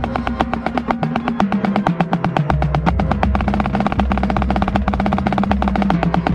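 Marching band playing, heard close up from the center snare drum: a dense run of rapid snare strokes over sustained low notes from the rest of the band that shift in pitch every second or so.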